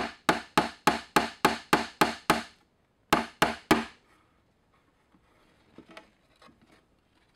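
Claw hammer driving a nail into a cedar fence board: a quick run of about nine sharp strikes, about three a second, a short pause, then three more strikes. Only faint small knocks follow.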